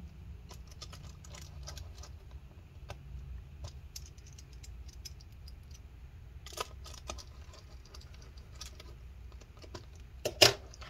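Small screws being fitted and driven back into a laptop with a small precision screwdriver: scattered light clicks and ticks of metal on metal, with one sharper click near the end.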